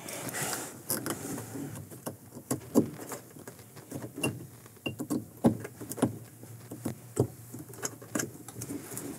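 Irregular small plastic clicks and knocks as wiring connectors are pushed onto a washer drain pump and the pump is handled.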